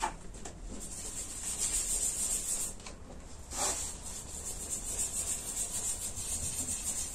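Polisher pad buffing freshly applied clear coat on a car hood to blend in the edge of the repair: a steady rubbing hiss that swells and dips as the pad moves.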